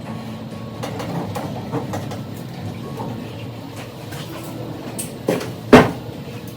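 Scrapes and light clunks of hands fitting water hoses to the back of a washing machine, with one sharp, loud knock near the end.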